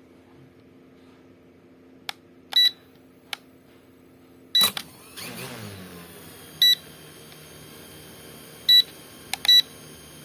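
Several short electronic beeps from an S9S drone and its remote, with a few clicks, then about halfway through the drone's brushless motors start and keep spinning with a steady whine and hum during a motor test.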